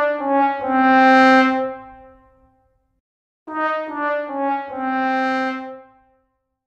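The 'sad trombone' comedy sound effect: a brass 'wah-wah-wah-waaah' of short notes stepping down in pitch, the last one held and fading. It ends and then plays again in full about three and a half seconds in.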